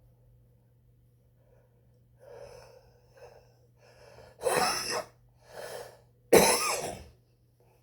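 A cigarette smoker coughing: a few quiet breathy sounds, then two loud coughs a little under two seconds apart with a softer one between them. It is a smoker's cough from heavy cigarette smoking.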